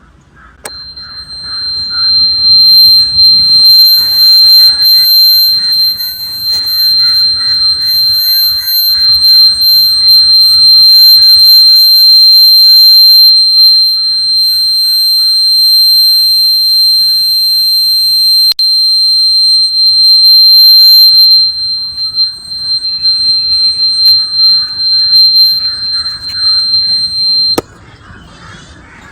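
Battery-powered electric buzzer of a homemade doorbell sounding one steady, high-pitched tone. It switches on with a click about a second in, breaks briefly about two-thirds through, and cuts off with a click shortly before the end.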